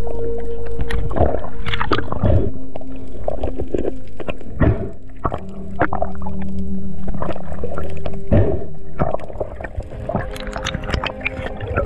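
Background music with long held notes that change pitch every few seconds, with irregular sharp clicks throughout.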